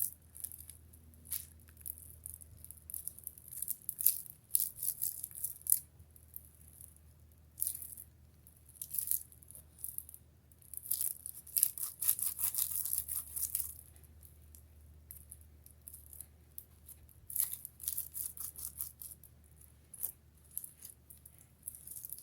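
Hands kneading a stiff, over-activated slime, giving irregular crisp crackles and clicks that come in clusters, the densest about halfway through.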